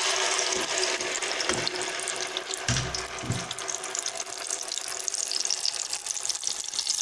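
Garlic, ginger, onion and tomato paste sizzling and crackling in hot oil in a pot, with a low bump about three seconds in.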